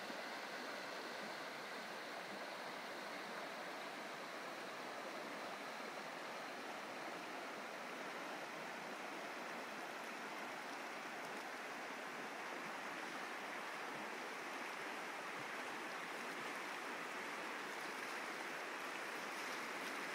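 Fast-flowing stream rushing over its bed in white water: a steady, even rush that grows slightly louder near the end.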